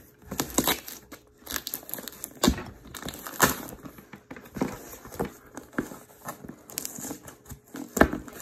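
Packing tape being peeled and torn off a cardboard shipping box, a run of irregular crackling rips with a few sharper, louder tears. The tape pulls up and tears the box's surface as it comes off.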